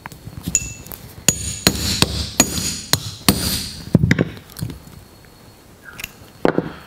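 Hammer striking a steel punch set in a fishing hook's eye on a soft timber block: about five sharp metallic taps, each with a short ring, from about a second in to about four seconds in, with a few lighter taps around them. The hammering opens the hook's eye a little so hooks can be ganged together.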